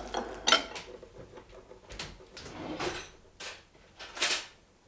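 Kitchen handling sounds: a handful of short knocks and scrapes as dishes and utensils are moved around on a counter, the loudest a brief scrape about four seconds in.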